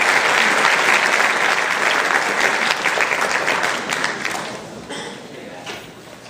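Audience applauding, a dense patter of many hands clapping that dies away over the last two seconds.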